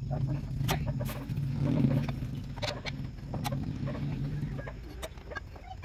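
Scattered sharp metal clinks of hand tools working on an excavator's steel track shoes, over a steady low drone.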